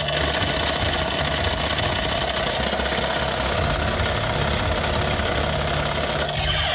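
Battery-powered toy gun giving a steady, rapid buzzing rattle.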